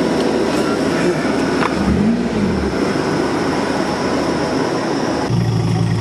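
Off-road 4x4 engine running, with one brief rev that rises and falls about two seconds in. About five seconds in, the sound switches abruptly to a steadier engine hum.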